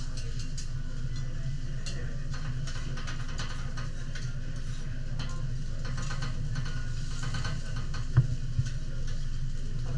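Light clicks and scrapes of a chef's knife and spatula working on a teppanyaki iron griddle, over a steady low hum. A sharp metal clack comes about eight seconds in.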